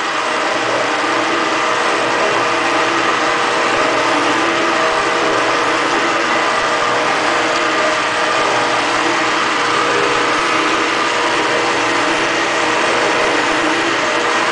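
Valve seat machine's spindle driving a bull hog throat cutter into a cast-iron Ford 460 cylinder head, opening the port throat at a taper below the valve seat. It makes a steady machine hum with several steady tones that holds unchanged throughout.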